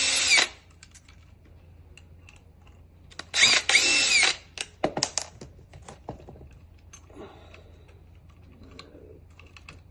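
Power drill-driver backing out the screws that hold a lock's plate on. It runs in two bursts of about a second each, at the very start and about three and a half seconds in, its motor whine rising and falling. A few sharp clicks follow.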